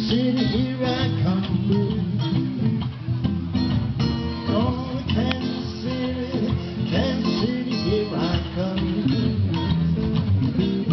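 Live acoustic guitar music with strummed chords.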